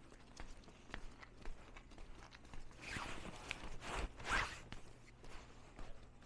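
Footsteps crunching on snow, with louder, longer crunching scuffs about three and four seconds in.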